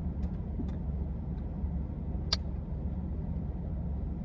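Steady low rumble, with a few faint clicks and one sharp click a little over two seconds in.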